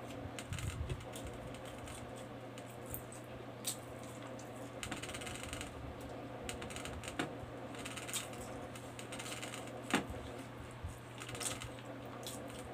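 Close-miked eating: chewing and lip-smacking with wet mouth clicks as rice and pork are eaten by hand, with a sharper click about ten seconds in. A steady low hum runs underneath.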